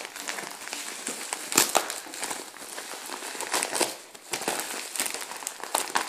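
Yellow plastic mailing bag crinkling and rustling as hands pull it open and handle it, with several sharp crackles.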